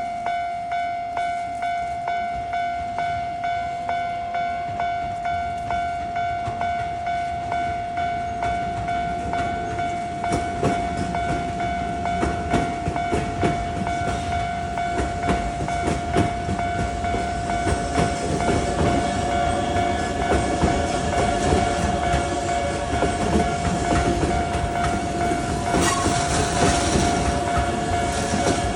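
Japanese level crossing warning bell ringing in a steady repeating rhythm. From about ten seconds in, a Keihan electric train runs past, its wheels clattering over the rail joints and growing louder toward the end, with a brief hiss near the end.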